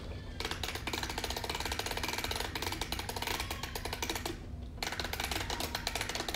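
Dense, rapid rattling in two spells with a short break about four seconds in, from a package of Orbeez water beads being handled.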